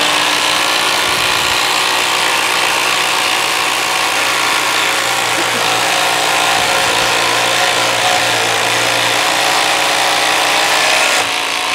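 Two 12-volt cordless impact drivers running at once, hammering screws into a wooden board: a loud, continuous rapid-fire rattle that eases a little near the end.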